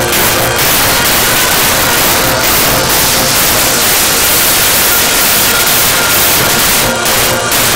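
Electronic dance music (psytrance) over a festival sound system in a breakdown: the kick drum drops out and a loud white-noise wash fills the mix over faint repeating synth notes, then the beat comes back in about seven seconds in.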